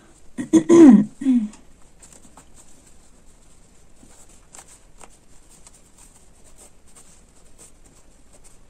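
A brief spoken word or two near the start, then faint rustling and scattered light ticks of silky dress fabric being handled as fingers pull a basting thread to gather the sleeve cap.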